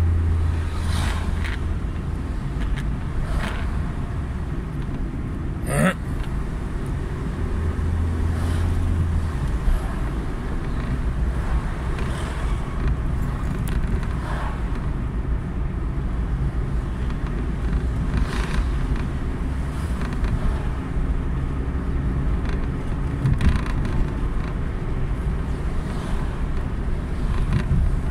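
Steady road and engine noise of a car in motion, a low rumble with a few brief knocks.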